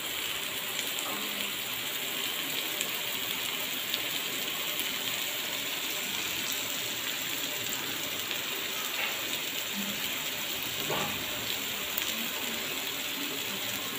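Vanjaram (seer fish) steaks shallow-frying in oil on a flat pan: a steady sizzle and crackle. The pieces are almost cooked through, their second side browning.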